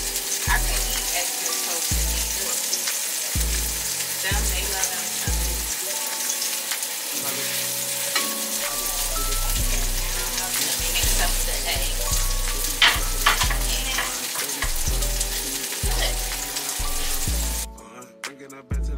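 Food sizzling as it fries in a pan, over background music with a deep, thumping bass beat. Near the end the sizzling cuts off and only the music is left.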